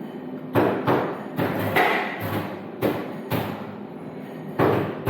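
A series of irregular thumps and knocks, roughly two a second, each sharp and quickly dying away.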